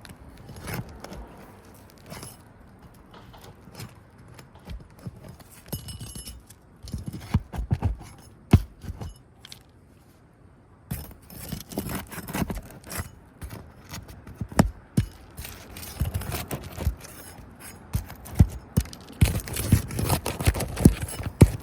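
Shingles being worked loose with a roofing tool: irregular scraping, clicks and knocks, busier in the second half.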